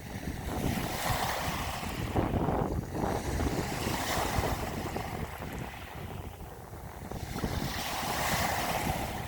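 Ocean waves surging and washing, rising and falling in slow swells that ease about six seconds in and build again near the end, with wind rumbling on the microphone.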